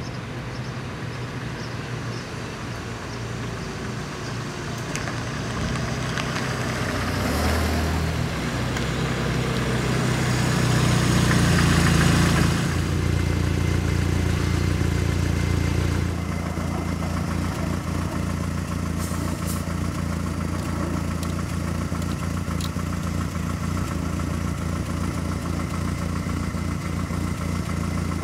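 Small car's engine running as the car pulls up, growing louder and rising in pitch around ten seconds in. It drops suddenly at about sixteen seconds to a steady idle.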